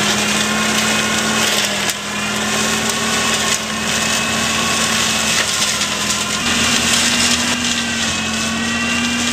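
Tractor-mounted Sauerburger Wiesel flail mower running under load on a grassy bank: a steady mechanical hum from the tractor engine and spinning flail rotor over a hiss of cut grass and soil. The hum steps up slightly in pitch about six and a half seconds in.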